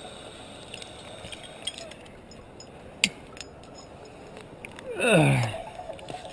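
Climbing hardware on a harness clinking, with one sharp metallic click about halfway through. Near the end the climber lets out a groan of effort that slides down in pitch.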